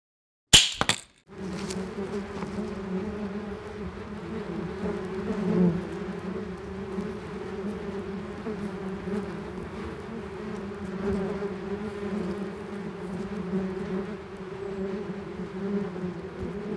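A sharp snap about half a second in, then the steady buzzing of a mass of yellow jackets, swelling briefly around the middle.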